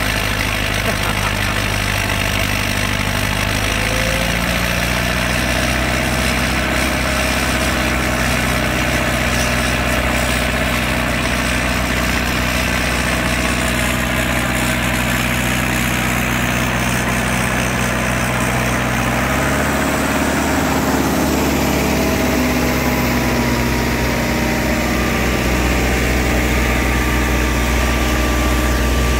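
Allis-Chalmers D19 diesel tractor engine running steadily under heavy load as it drives a PTO dynamometer in a horsepower test. Its note changes about two-thirds of the way through as the load shifts.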